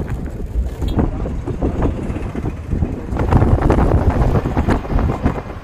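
A vehicle driving over a rough dirt road, with wind buffeting the microphone, a low rumble from the ride and scattered knocks and rattles over the bumps. It gets louder about three seconds in.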